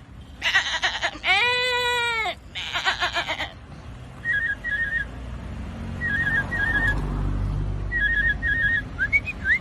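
A person mimicking animal calls by mouth: three drawn-out voiced calls, the middle one rising and falling in pitch, then short high whistled chirps in repeated pairs, and two quick rising whistles near the end.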